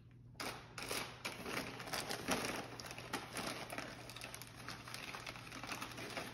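Gift wrapping paper crinkling and tearing, a dense run of crackles that starts about half a second in.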